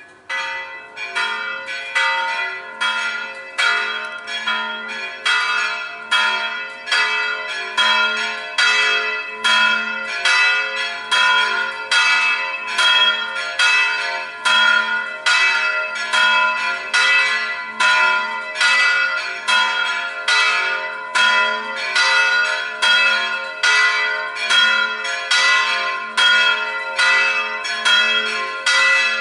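Church tower bells pealing: several bells of different pitch struck in a fast, steady rhythm of about two strikes a second, each stroke ringing on under the next. The peal comes in loudly right at the start.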